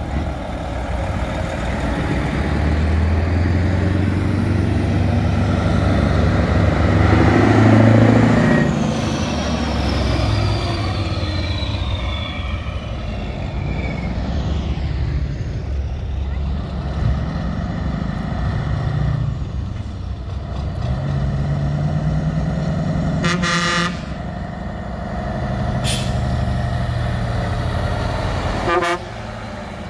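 Diesel engines of classic lorries running and revving as they drive off, the engine note sliding in pitch as one passes about a third of the way in. Three short horn toots come in the last several seconds.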